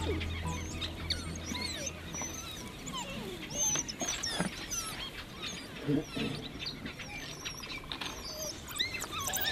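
A pack of African wild dogs feeding on a kill, giving many overlapping short, high twittering squeaks and chirps. A music track fades out in the first two seconds.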